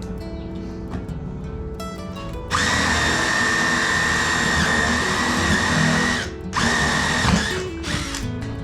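Power drill running at a steady speed for about three and a half seconds, stopping briefly, then running again for under a second. Background music plays underneath.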